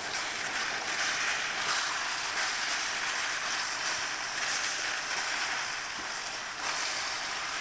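Steady frying sizzle from vegetables and spices cooking in a pan as the Hakka noodles go in.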